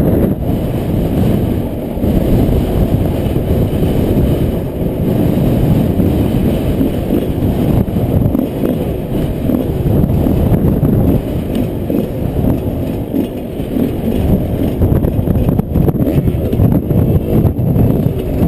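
Yamaha 125 motorcycle running while being ridden off-road, its engine noise mixed with heavy wind buffeting on the microphone. The sound is loud, rough and continuous, with small dips in level.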